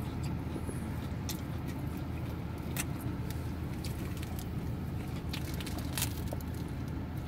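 Steady low hum inside a car, with faint scattered clicks from biting into and chewing a sub sandwich.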